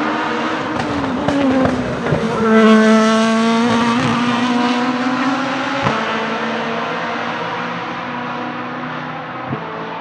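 The Gibson GL-458 4.5-litre V8 of a 2018 Rebellion R-13 LMP1 prototype passing by on track. It is loudest about three seconds in, then fades slowly as the car pulls away. Short sharp breaks cut the note at about two, four and six seconds in.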